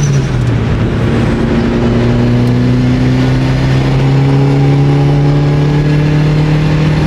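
Mitsubishi Lancer Evolution's turbocharged four-cylinder engine pulling under way on a mostly stock exhaust. Its note dips briefly at the start, then rises slowly and steadily as the car accelerates.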